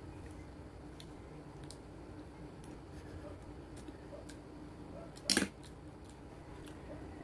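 Eating sounds from a cake mukbang: faint, scattered mouth clicks while chewing, with one short, loud burst about five seconds in.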